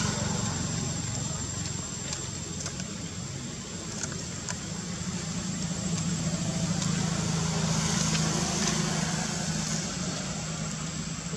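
A steady low motor hum, swelling somewhat in the second half, under an even background hiss with a few faint clicks.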